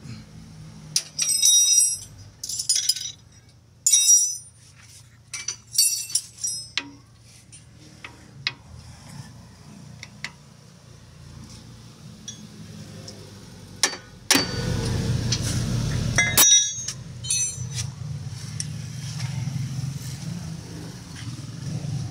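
Metal tools and parts clinking together, with a run of sharp, ringing metallic strikes in the first seven seconds and scattered clicks after. A little past halfway there is a loud burst of rushing noise lasting about two seconds, and a low hum follows.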